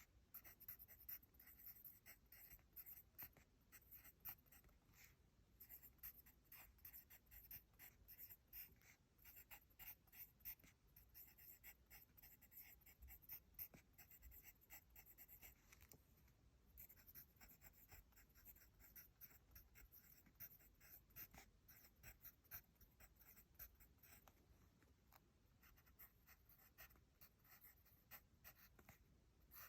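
Pencil writing on paper: soft, quick scratching strokes of handwriting, close to the microphone, with a brief pause about halfway.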